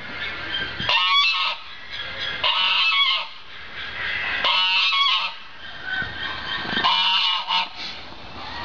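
A bird honking: four loud calls, roughly two seconds apart.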